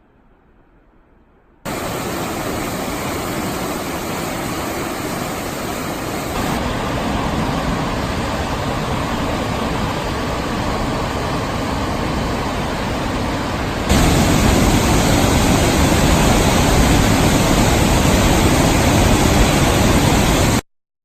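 Steady rushing of water at High Falls on the Pigeon River, a large waterfall, over three shots: it starts suddenly about two seconds in, gets louder about five seconds later and again near the middle, and cuts off abruptly just before the end.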